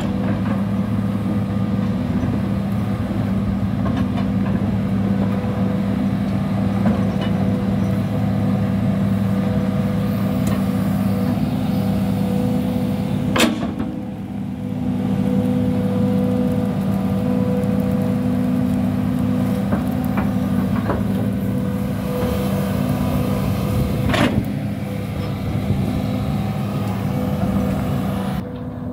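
Hitachi 210 hydraulic excavator's diesel engine running steadily under load as it digs, a steady low hum. Two sharp knocks, one about halfway through and one near the end.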